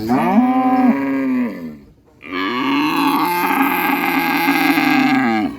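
Cow mooing twice: a moo of under two seconds, then after a short pause a longer moo of about three seconds that drops in pitch as it ends.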